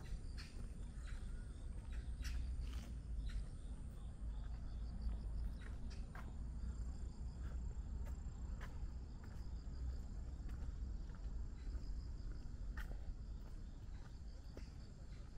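Insects chirping in short, fast pulsed trills over a faint steady high tone, with scattered footsteps and a steady low rumble underneath.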